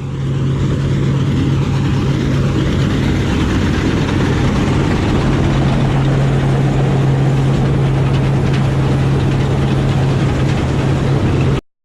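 A heavy farm machine's diesel engine running steadily at harvest, with a strong low hum. It cuts off suddenly near the end.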